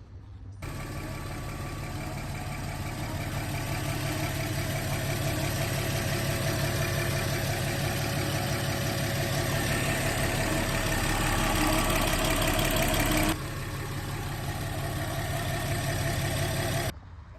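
Porsche Cayenne VR6 engine running steadily at idle. The sound starts suddenly, slowly gets louder, drops its deepest part abruptly about thirteen seconds in, and cuts off near the end.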